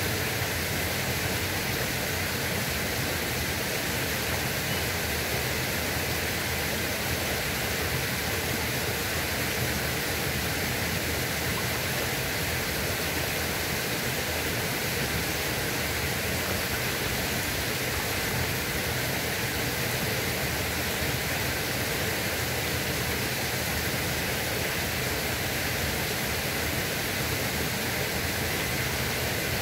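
Steady rushing noise of flowing water, even and unbroken.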